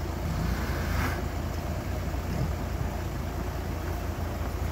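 Steady low rumble of car engines running, with a car crawling across a sheer-ice road.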